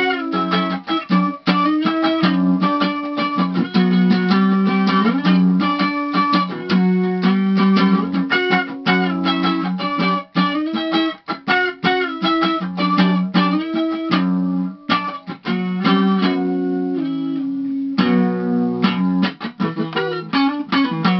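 Electric guitar played fast: rapid picked single-note runs and riffs over held low notes, with a short break about fifteen seconds in.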